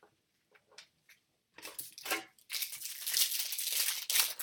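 A trading-card foil pack being torn open, the wrapper crinkling loudly and continuously from about halfway in, after a few faint clicks.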